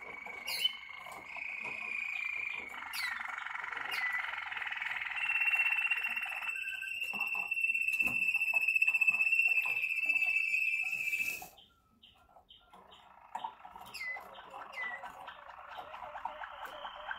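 Malinois Waterslager song canary singing in long rolled and trilled passages. One high note is held steady for several seconds in the middle. The song breaks off briefly about two-thirds of the way through, then starts again.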